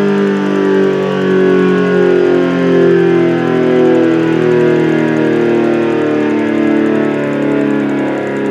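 ACA Allertor 125 outdoor warning siren sounding a steady chord of several tones at once, the pitch holding with slight wavering.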